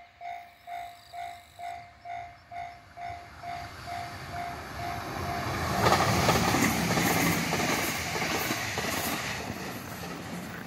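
A railway level-crossing bell dings about twice a second and fades out over the first four seconds, as an electric train draws near. The train then passes close by, its rumble and wheel noise loudest about midway, then slowly dying away.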